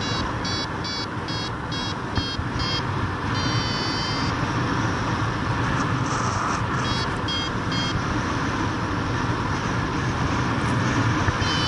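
Paragliding variometer beeping in quick pulses of about three to four a second, breaking into longer held tones a few times, the beeping that signals rising air. Steady wind rushes across the microphone underneath.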